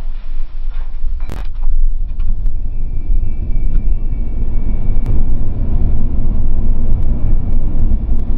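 Cabin noise inside a Tesla Model 3 Dual Motor accelerating hard from a standstill to about 67 mph: a loud, steady low rumble of tyres and road with no engine note. There is a sharp click about a second in, and a faint high whine a few seconds in.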